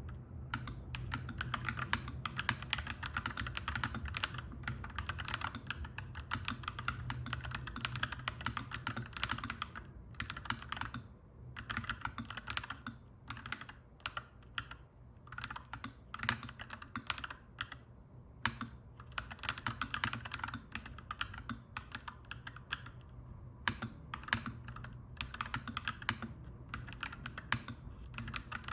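Typing on a clacky mechanical keyboard: fast runs of keystrokes with brief lulls around eleven, fifteen and twenty-three seconds in, over a steady low hum.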